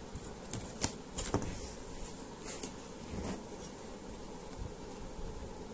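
A hand handling a non-woven fabric bag wrapped around a cookware pan: a few brief rustles and light taps in the first three seconds, then quieter.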